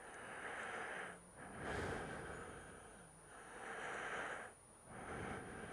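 A person breathing close to the microphone: about four soft rushes of air, each roughly a second long, with short pauses between them.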